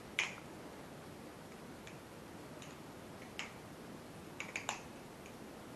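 Scattered light metallic clicks and taps from a solid-aluminium balisong (butterfly knife) being handled, with a quick run of three clicks about four and a half seconds in.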